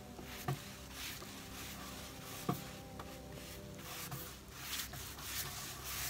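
A brush stroking clear coat onto a sanded wooden dresser surface: soft, repeated swishes with a few light taps.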